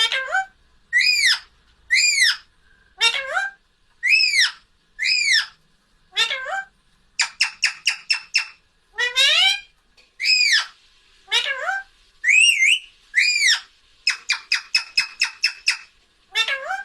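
Pet Indian parrot calling over and over: short, high, arched squawks about once a second, broken twice by quick runs of rapid chattering notes. These are its tries at saying "Mummi".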